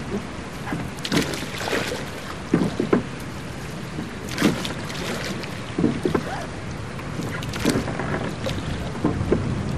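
Oars of a rowboat dipping and pulling through water, a splashing stroke about every second and a half over a steady wash of water.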